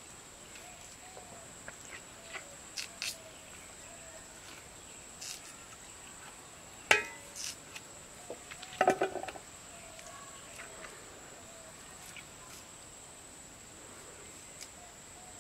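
Scattered sharp clicks and knocks from cutting turnips and raw chicken on floor-mounted curved blades, loudest as a single knock about seven seconds in and a quick cluster around nine seconds. A steady high-pitched insect drone runs underneath, with faint bird calls.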